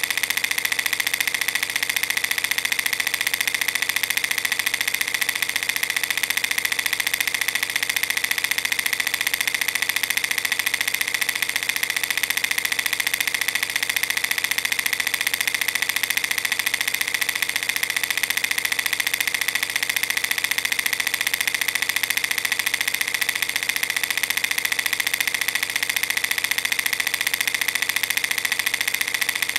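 Film projector running: a steady, rapid mechanical clatter of film being pulled through the gate.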